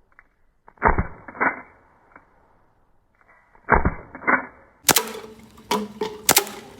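WE Hi-Capa 5.2 airsoft pistol converted to HPA firing single shots off an air-tank line, each a sharp crack of the gas blowback slide cycling. The shots come about seven or eight times, mostly in pairs about 0.6 s apart.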